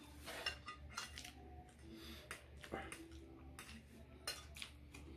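Scattered light clinks and scrapes against a metal serving tray as noodles are picked up from it, several sharp ticks a second or so apart.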